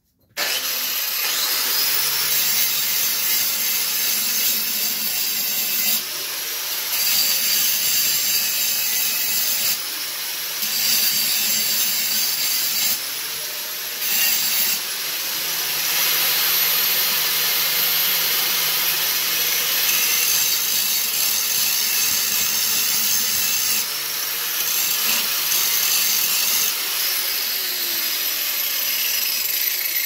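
Handheld power grinder running continuously and grinding down the end of a small engine's steel shaft, a steady high-pitched grinding noise that eases briefly a few times as the tool shifts on the work.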